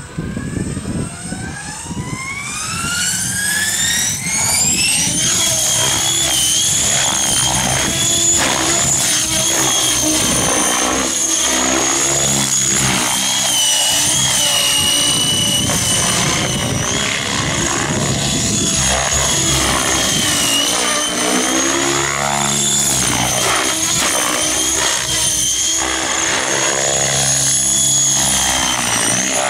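Avant Aurora 90 electric RC helicopter spooling up: its motor whine climbs steeply in pitch over the first five seconds or so, then holds at a high steady whine. Over it the rotor blades' noise swells and fades as the helicopter is thrown through aerobatic manoeuvres.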